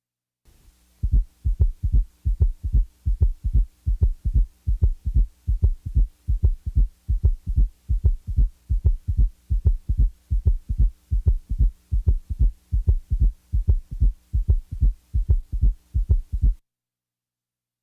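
Heart sounds as heard through a stethoscope: a steady, evenly repeating train of low heartbeat thuds for about sixteen seconds, cutting off suddenly near the end, with a faint steady hum underneath.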